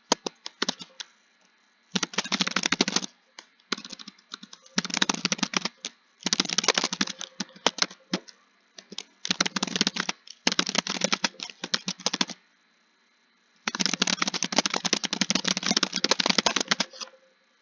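Computer keyboard being typed on in fast runs of keystrokes, each run one to two seconds long with brief pauses between; the longest run, about three seconds, comes near the end.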